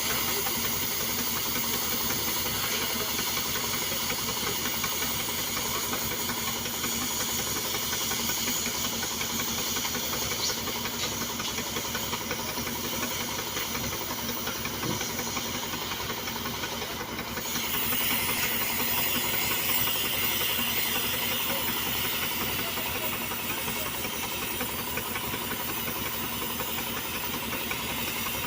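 Steady hissing rush of a flame during thermite welding of railway rail. About seventeen seconds in it turns brighter and a little louder.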